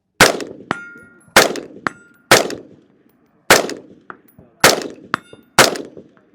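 AR-15 rifle fired six times, about a second apart, at a steel target about 150 yards off. Three of the shots are followed about half a second later by the faint ping of the steel ringing, the sign of a hit.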